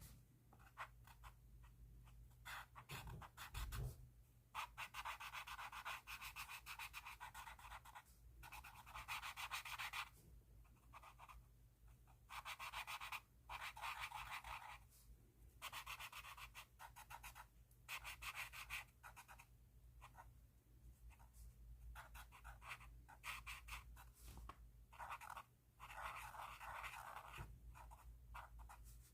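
Pen tip scratching over paper in repeated strokes, each run lasting a second or two with short pauses between, faint.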